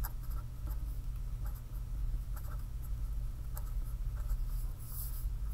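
A marker pen writing on paper: light, irregular scratching strokes as letters are formed, over a steady low hum.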